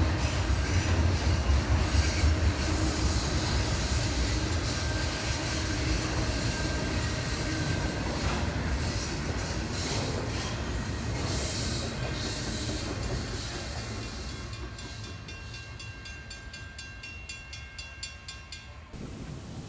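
Freight train cars rolling past on the rails, with a low rumble, some wheel squeal and the clack of the wheels. The sound fades steadily as the train moves away.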